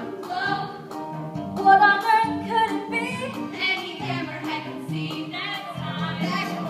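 A group of stage performers singing a show tune together over musical accompaniment.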